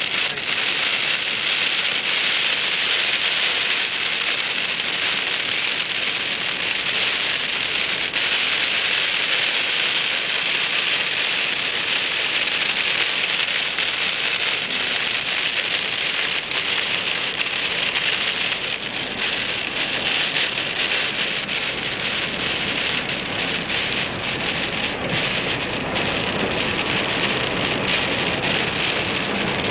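Wet snow and rain hitting the windshield and roof of a moving car, heard from inside the cabin as a steady hiss. From a little past halfway, separate ticks of drops striking the glass stand out.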